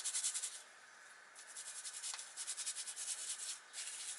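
Toothbrush scrubbing caked dust and muck from between the copper windings of a vacuum cleaner motor, in quick back-and-forth strokes. The scrubbing pauses about half a second in, resumes about a second later, and breaks off briefly near the end.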